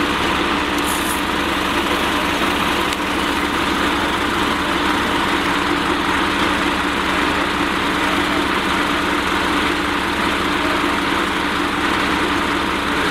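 Fire engine's engine running steadily under load as it drives the pump feeding a hose line.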